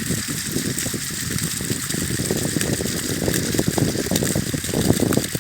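Waterfall water rushing: a loud, steady noise, with an uneven churning in the lower part.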